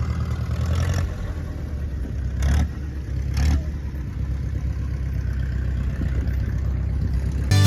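An engine running steadily with a low hum, with two brief louder noises about two and a half and three and a half seconds in.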